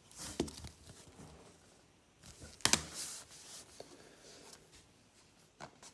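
Trading cards and hard plastic card holders being handled and set down: faint rustling with a few sharp clicks, the loudest about two and a half seconds in.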